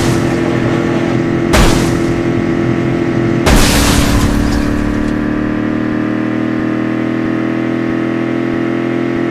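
Two loud booms, about two seconds apart, over a steady droning hum.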